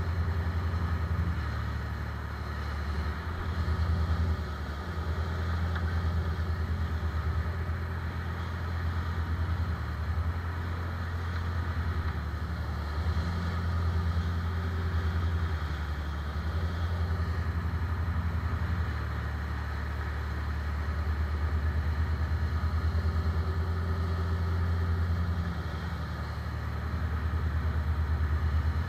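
Engine of a 28-foot Henriques sportfishing boat running underway, a steady low drone that swells and eases every few seconds, with water rushing along the hull.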